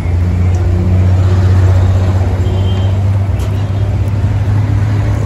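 A steady, loud low hum from a motor or engine running, with street noise.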